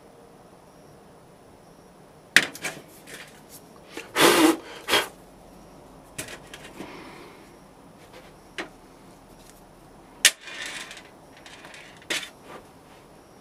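Handling noises from a plastic 3D-printed pattern being unscrewed and lifted out of a sand-casting flask and set down on the bench: scattered clicks and knocks with short scrapes. The loudest is a cluster of knocks and scraping about four seconds in.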